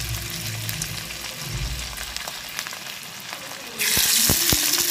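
Breadcrumb-coated cauliflower florets (gobi 65) sizzling as they deep-fry in hot oil. Near the end the sizzle suddenly grows louder and brighter as more florets are dropped into the oil, with a few dull knocks.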